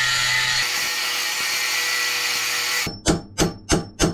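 Ryobi angle grinder cutting a line along the corroded metal grease packer on a boat's propeller shaft, a steady grinding that stops sharply about three seconds in. Hammer blows on the packer follow, about three a second, to crack the cut casing open.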